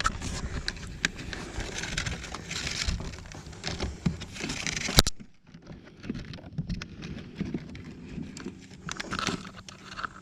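Handling noise of wires being fed through a hole in a car's plastic door panel: rustling and scraping with scattered clicks and knocks, and one sharp click about five seconds in, after which it goes quieter.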